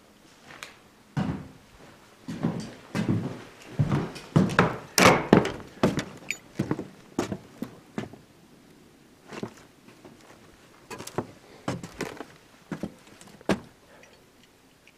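A string of irregular wooden thunks and knocks, including a door, densest in the first half and thinning out toward the end.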